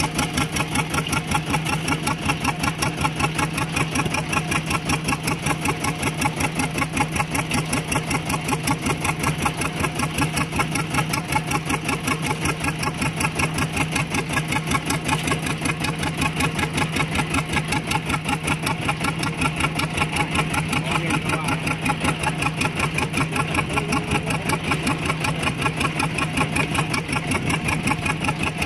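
A small fishing boat's inboard engine idling with a rapid, even chugging beat that does not change.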